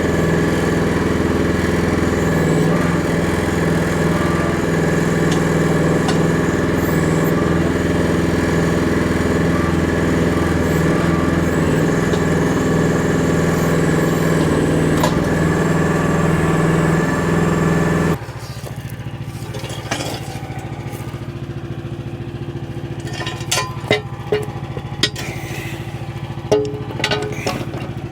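Small Chinese mini excavator engine running steadily, then dropping abruptly to a quieter steady run about two-thirds of the way through. Several sharp metallic clanks and knocks come in the last few seconds.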